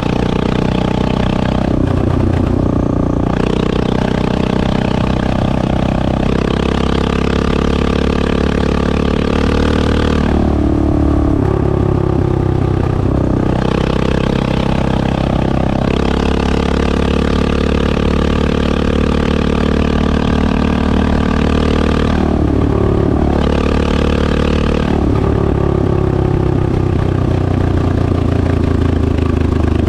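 1986 Honda XL600R single-cylinder four-stroke engine running through a DEVIL stainless exhaust. Its pitch rises and falls several times as the revs change.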